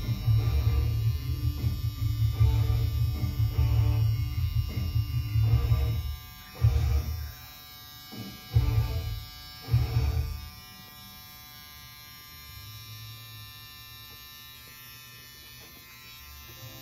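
Electric tattoo machine buzzing as it needles skin. It runs steadily for about six seconds, then comes in three short bursts and stops. Faint music plays underneath.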